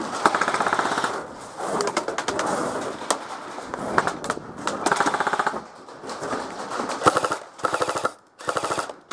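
Airsoft rifles firing full-auto: rapid trains of clicks in several bursts, longer ones at first and shorter, choppier bursts near the end.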